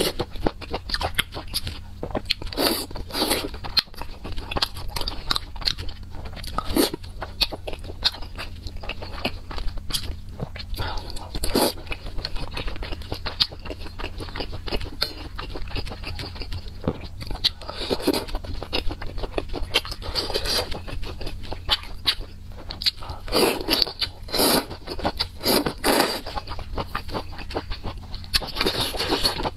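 Close-miked eating of noodle soup: chewing and mouth sounds with many small clicks, louder smacking or slurping bursts every few seconds, and chopsticks scraping in the metal pot, over a steady low hum.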